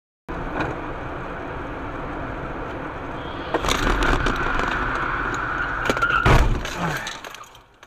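Dashcam recording of a car's road noise, turning rougher with sharp clicks about three and a half seconds in, with a high steady whine for about two seconds. A loud crash about six seconds in, the dashcam car hitting the back of the SUV ahead, then the noise fades away.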